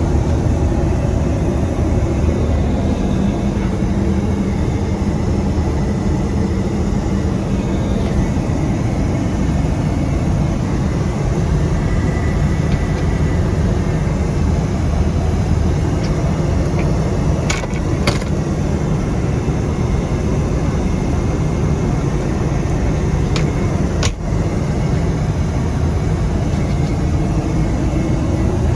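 Steady rumble and rush of a Boeing 737-900 jetliner, its CFM56 engines and airflow running without a break. A few short clicks cut through in the second half: two close together, then one more.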